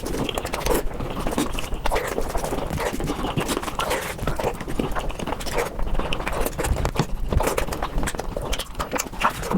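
Eating sounds played back at five times speed: a person chewing and crunching food, turned into a rapid, dense run of crackly clicks.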